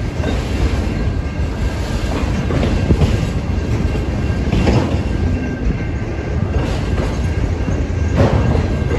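Freight train of autorack cars rolling past close by: a steady rumble of steel wheels on rail, with a clack every second or two as wheelsets cross rail joints and a faint high steady tone over it.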